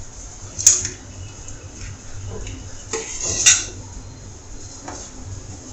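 A spoon stirring curry in a stainless steel pot, scraping and knocking against the pot's side, with two sharp clinks, the first just under a second in and the second about three and a half seconds in.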